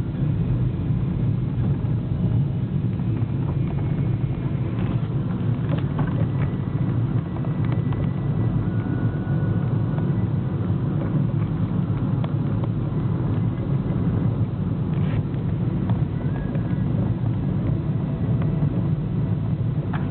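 Car driving steadily on an asphalt road, heard from inside the cabin: an even low engine and tyre rumble with a few faint clicks and rattles.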